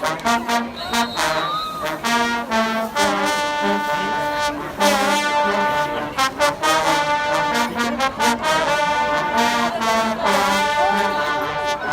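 Marching band playing loudly: trombones and trumpets carry the tune over a repeating low brass line, with drum hits keeping a steady beat.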